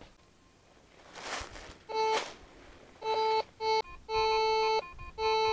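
Metal detector sounding target tones as its coil sweeps over leaf litter: a steady, buzzy, organ-like tone that cuts in and out about five times from about two seconds in, some bursts held for most of a second, signalling metal under the coil.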